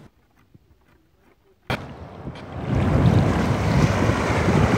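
Near silence, broken by a single sharp click, then loud rushing surf with wind buffeting the microphone, starting a little past halfway.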